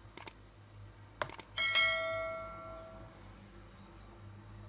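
Subscribe-button sound effect: a few quick mouse clicks, then a bell chime about a second and a half in that rings out and fades over about a second and a half.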